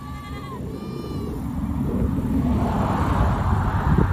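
Goats bleating, two calls in the first second and a half. Then a low rumbling noise builds and becomes the loudest sound, with a thump near the end.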